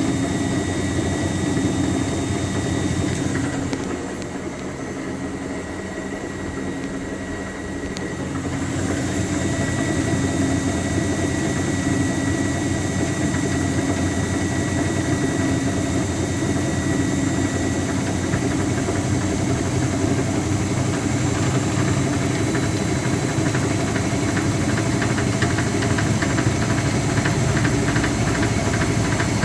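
Speed Queen TR-series top-load washer running with a repetitive knocking clunk. The drive pulley has play on its shaft because the pulley nut has loosened. The sound drops in level about four seconds in and comes back after about four seconds, and a fast knocking grows plain in the second half.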